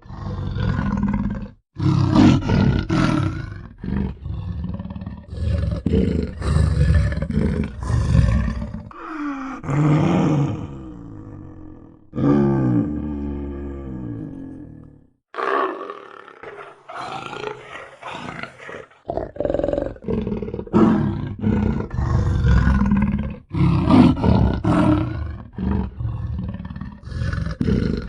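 Leopard calling: runs of short, harsh grunts in quick succession, broken in the middle by two longer growls that slide down in pitch.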